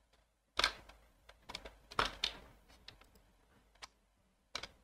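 Computer mouse and keyboard clicks. There is an irregular scatter of sharp clicks and taps, louder ones about half a second in, about two seconds in and near the end, with lighter ticks between them.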